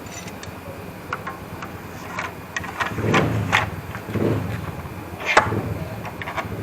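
Scattered clicks, knocks and rubbing from a track saw's guide rail and tools being handled and lined up on a wooden table top, with a few duller thumps in the middle and a sharp knock near the end.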